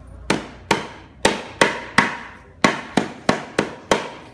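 A knife chopping lemongrass stalks on a wooden chopping block: about ten sharp chops, two or three a second, each with a short metallic ring from the blade.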